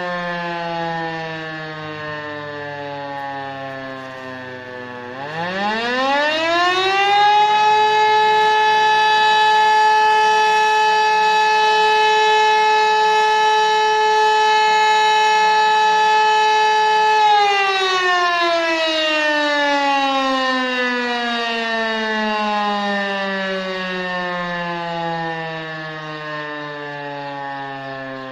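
E57 electromechanical siren giving one tone of the fire alarm signal that calls out the volunteer fire brigade. It is still winding down at first, spins up quickly about five seconds in to a steady howl held for about ten seconds, then winds down slowly with its pitch falling.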